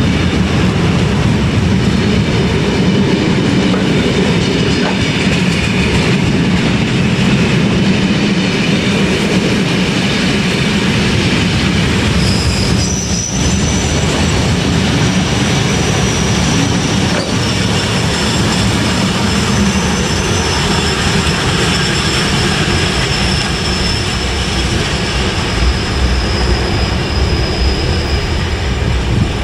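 Loaded open box wagons of a long freight train rolling past, a steady loud rumble of wheels on the rails. A high thin wheel squeal joins about halfway through and lasts until near the end.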